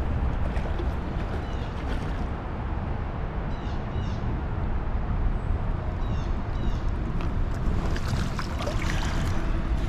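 Steady rushing noise of flowing creek water, with a small bird's quick chirping call heard twice, about four and about seven seconds in, and a few light clicks.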